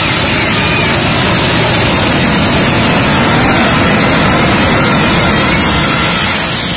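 Flower-pot fountain fireworks spraying sparks with a loud, steady hiss.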